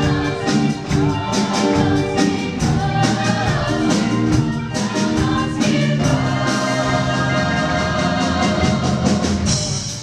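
Large mixed-voice chorus singing a musical theatre number with instrumental accompaniment and a steady beat, holding a long chord through most of the second half.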